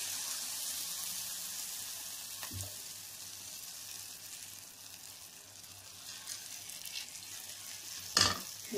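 Rice-and-chana-dal adai batter sizzling in hot oil in a cast-iron kadai, the hiss slowly dying down. A sharp metallic clatter about 8 seconds in.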